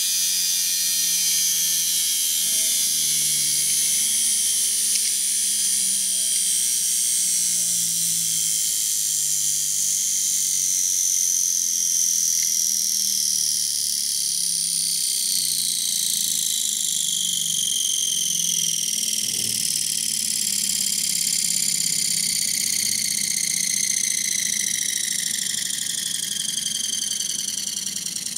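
Pancake electric motor with a spinning disc rotor, slowing down: its high whine falls steadily in pitch over a low hum, and grows a little quieter near the end.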